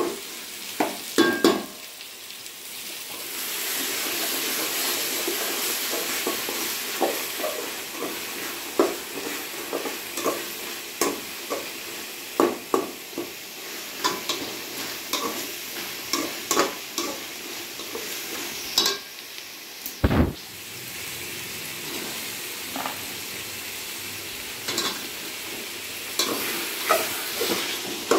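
Vegetables sizzling in hot oil in a large aluminium pot while a spoon stirs them, scraping and clicking against the pot's sides. One louder knock about twenty seconds in.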